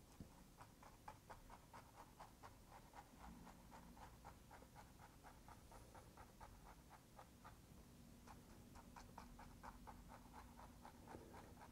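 Faint strokes of a fan brush dabbed against a canvas, about three a second, laying in grass.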